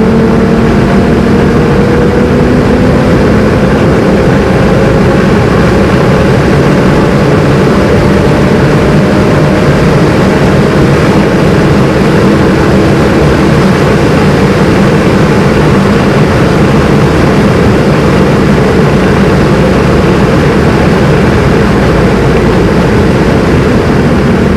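Nissan Skyline R33 GTS-t's turbocharged straight-six, fitted with a Garrett GTX3076 turbo, pulling hard in fifth gear from 100 km/h to over 200 km/h. It is loud and continuous, with the engine note rising slowly over the first half.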